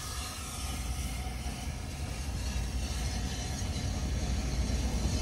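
Class 37 diesel locomotive's English Electric engine running with a low steady rumble, slowly growing louder.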